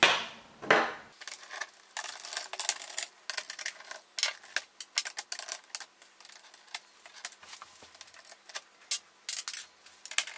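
Screwdriver working the screws out of an all-in-one PC's plastic back case: a run of irregular small clicks and ticks, with a louder knock or two in the first second.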